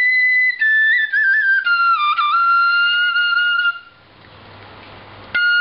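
Vietnamese bamboo transverse flute (sáo trúc) playing a slow phrase: a held high note, then a stepwise fall in pitch with a quick ornamental bend, settling on a long lower note. After a pause of about a second and a half, it starts again near the end with a lower note followed by a higher one.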